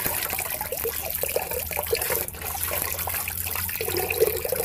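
Water splashing and trickling as hands scoop it up from a shallow rock pool to drink, with many small irregular splashes.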